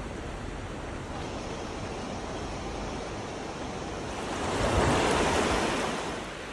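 Steady rushing of river water, with a louder surge of rushing noise lasting about two seconds, a little past the middle.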